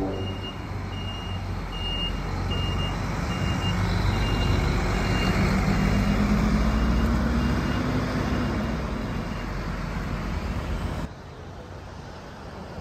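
Tour coach's diesel engine pulling away, its pitch rising as it speeds up across the lot. For the first several seconds a high warning beep sounds about twice a second and fades as the coach moves off. Near the end the sound cuts to quieter street traffic.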